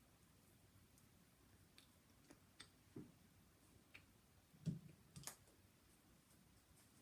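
Near silence broken by a few faint, short mouth clicks and wet smacks from chewing a wad of paper, the clearest two a little past the middle.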